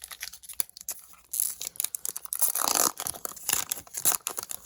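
A hockey trading-card pack's wrapper being torn open and crinkled, a run of irregular rips and crackles starting about a second in.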